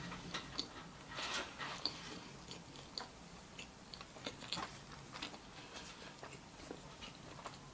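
Close-miked chewing of a mouthful of toasted Subway sandwich with the mouth closed: soft, irregular crunches and small wet clicks, a little busier early in the chew.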